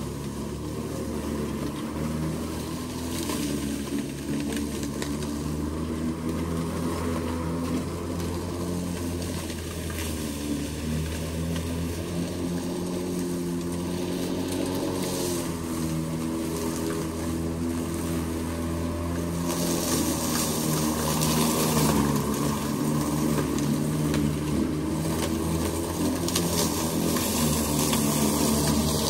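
Makita XML11 36-volt (18V X2) cordless lawn mower running, its electric motor and blade making a steady hum that dips a little in pitch about halfway, with a rushing hiss that grows louder in the last third.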